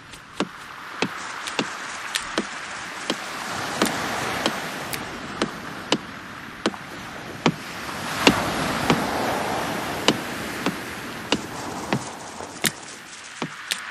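Surf washing on a beach, swelling and fading, with sharp clicks over it about every two-thirds of a second.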